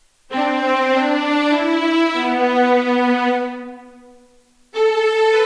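Spitfire Albion One string-ensemble sample library playing sustained bowed chords on its Long patch. The chord moves to new notes at about two seconds and then fades away, and a fresh chord comes in near the end.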